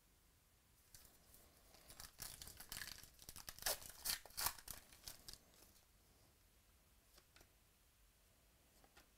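A plastic trading-card pack wrapper (2018 Classics football) being torn open by hand and crinkled. The crackling runs from about a second in to about five seconds and is loudest in the middle. A few faint clicks follow as the cards are handled.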